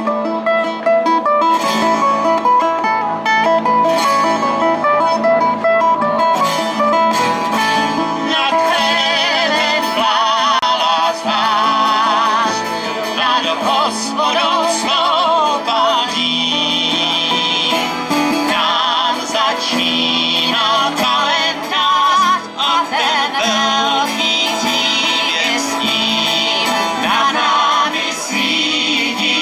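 Live acoustic folk band performing: voices singing with strummed acoustic guitars and a double bass, picked up through stage microphones.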